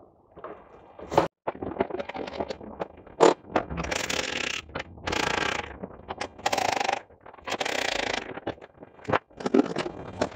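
Workshop handling noise: a couple of sharp knocks, then a run of short scraping and rattling bursts about a second apart, as tools and car body parts are handled.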